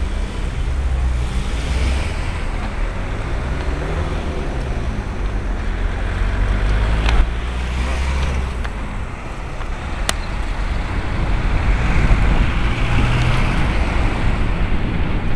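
Steady wind noise on a bicycle helmet camera's microphone while riding, mixed with car traffic on the road. Two sharp clicks come a few seconds apart around the middle.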